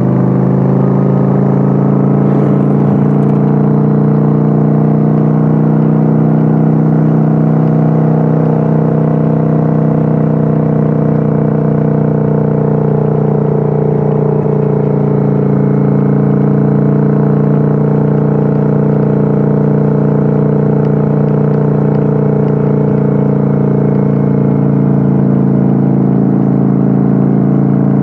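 Kawasaki Vulcan 900's V-twin engine and exhaust, recorded on board while cruising at a steady speed. The engine note eases slightly in the first couple of seconds, then holds an even pitch.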